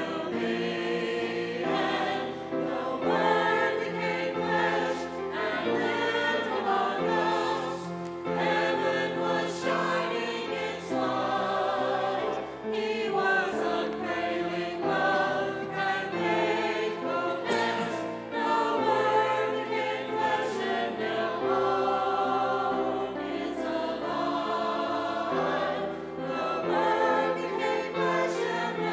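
Many voices singing a hymn together, in sustained notes that change about once a second.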